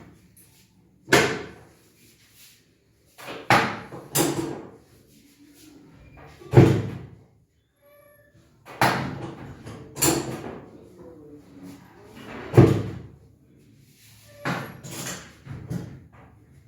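Chiropractic drop table's drop sections slamming down under the chiropractor's thrusts during spinal adjustment. About ten sharp knocks come a second to a few seconds apart, some in quick pairs.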